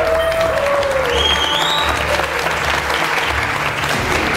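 A roomful of people applauding steadily.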